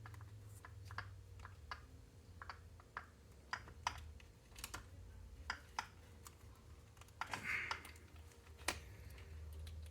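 Light, irregular clicks and taps of small RC car parts and hand tools being handled, with a brief rustle a little past seven seconds in and a sharper click near the end, over a steady low hum.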